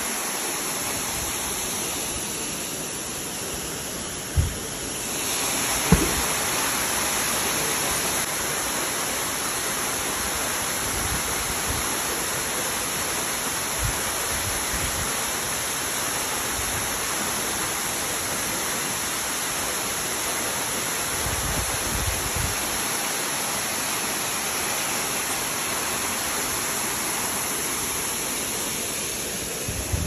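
Waterfall crashing into its plunge pool: a steady rush of falling water that grows louder about five seconds in. Two brief low thumps come early on.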